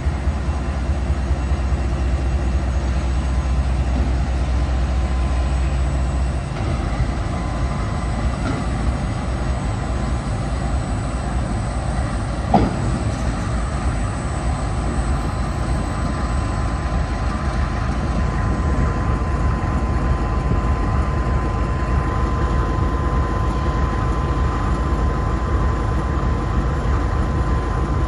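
A freight train rolling past with a continuous rumble of wheels on rail. A deep throb stops about six seconds in, and a thin steady ring from the wheels comes in for the last third.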